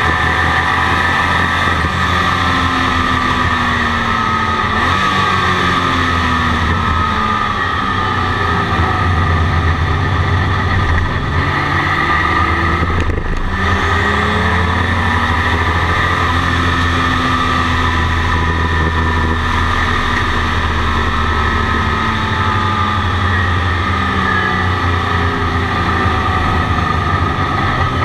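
Turbocharged flat-six engine of a 1982 Porsche 935 race car heard from inside its cockpit, repeatedly climbing in pitch and dropping back at each gear change as it laps the circuit. The sound briefly cuts back about thirteen seconds in.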